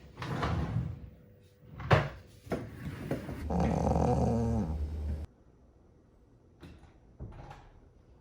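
Snoring: a few loud, rough breaths in the first couple of seconds, then a longer pitched one of nearly two seconds that slides down and stops abruptly about five seconds in. Fainter breaths follow near the end.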